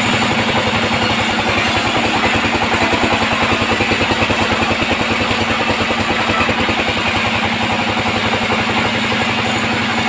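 Band sawmill running steadily while sawing mahogany: a fast, even, engine-like throb under a broad, loud hiss from the blade and the cut.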